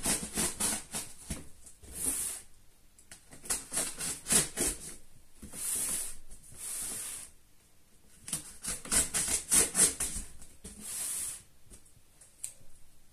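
Packing tape on a cardboard box being cut with scissors and peeled off: bouts of crackly scratching and snipping, with several longer tearing rips as strips of tape pull away from the cardboard.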